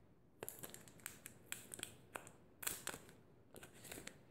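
Protective plastic film being peeled off the back of a smartphone: faint, irregular crackles and rustles of the thin plastic with small clicks as it lifts.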